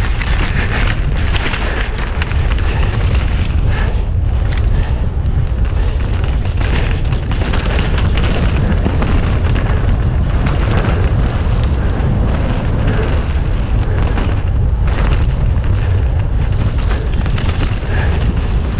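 Mountain bike descending fast on a downhill race course, heard from an onboard camera: a steady heavy wind rumble on the microphone, with frequent knocks and rattles from the tyres and bike over rough ground.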